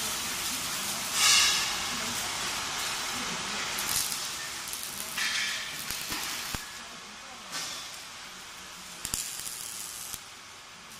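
Factory-floor noise in a metalworking shop: a steady hiss, louder hissing bursts about a second in and again around five seconds in, and a couple of sharp metallic clicks later on.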